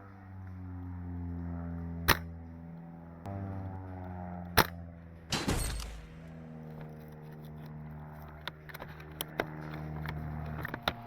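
Steady background music with two sharp cracks about two and a half seconds apart, shots from an SSG96 A1 bolt-action spring airsoft rifle, followed about a second later by a short rattling noise.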